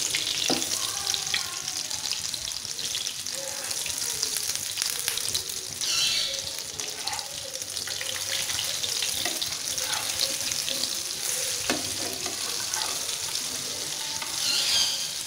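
Egg-dipped chicken shami kababs shallow-frying in oil: a steady sizzle, with a metal slotted spatula scraping and tapping the pan as the patties are turned over. The sizzle flares up about six seconds in and again near the end.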